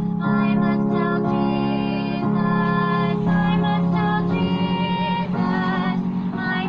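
Small group of singers singing a hymn over instrumental accompaniment, holding long notes, some with vibrato.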